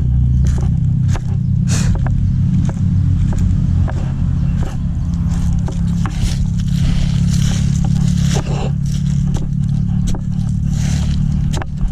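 A steady low drone runs throughout, with many short scrapes and clicks scattered over it.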